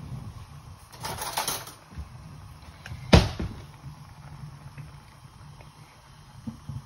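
A cardboard carton of silken tofu being torn open and handled, with a rustling tear about a second in and one sharp knock about three seconds in, over a low steady hum.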